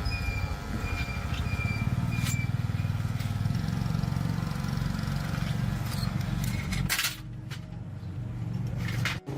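A motor-driven power tool running steadily with a low buzzing rumble, then cutting back sharply about seven seconds in.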